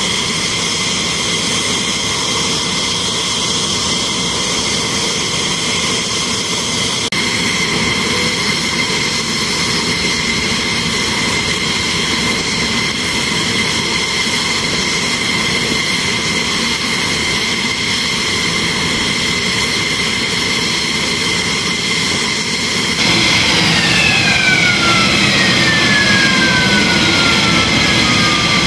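F-15E Strike Eagle jet engines running on the ramp, a steady high whine. About two-thirds of the way through it gets louder and a whine falls steadily in pitch.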